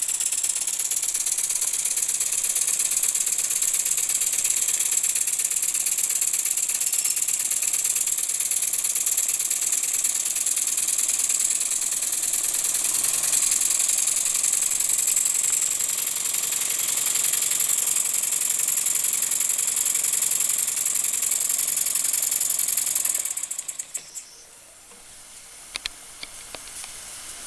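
Jensen 20 toy live-steam engine running fast with belt-driven toy generators: a steady, rapid mechanical clatter with a strong high hiss. About 23 seconds in the sound drops sharply to much quieter, with a few clicks after.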